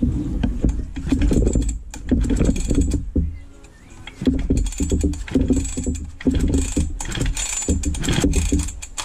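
Husqvarna 346XP two-stroke chainsaw being cranked with its pull-cord starter, several pulls in a row with a short pause after the first few, the engine turning over without firing: its ignition gives no spark.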